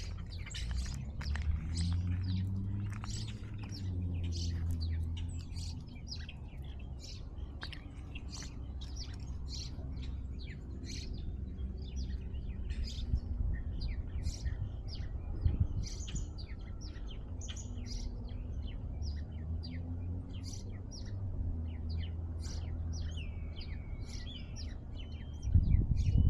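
Small birds chirping over and over in quick, high notes, over a steady low hum. A loud, low rumble breaks in near the end.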